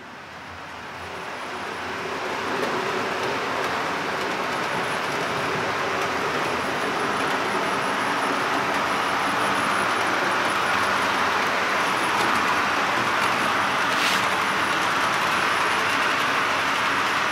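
H0-scale Roco Re 465 model electric locomotive hauling a heavy train of 20 metal four-axle freight wagons: the wheels run on the track with a steady rolling noise and a faint motor hum. The noise rises over the first couple of seconds, then holds steady, with a single sharp click about fourteen seconds in.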